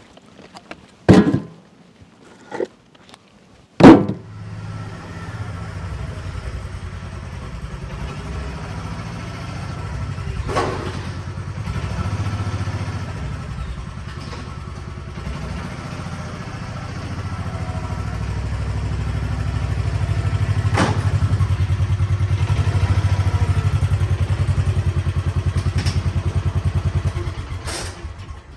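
A door shuts with a thud, then a vehicle engine starts and runs steadily, pulling harder and growing louder through the middle before it winds down and stops near the end.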